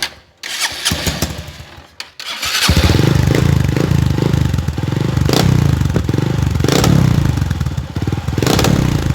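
Honda Fan 125 single-cylinder motorcycle engine starting up about two and a half seconds in, then running with a loud, deep, pulsing exhaust note through a Pop 110 'roncador' exhaust tip welded onto the pipe. The joint leaks a little, which the owner plans to fix with a new ring.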